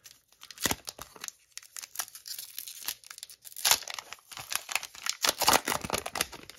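A 2006-07 O-Pee-Chee hockey card pack's wrapper being torn open and crinkled by hand, a run of irregular crackles, loudest about three and a half seconds in and again around five to six seconds in.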